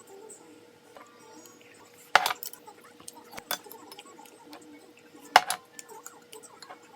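Kitchen clatter: light clicks and ticks of utensils and dishes being handled, with two sharp knocks about two seconds in and just past five seconds, over a faint steady hum.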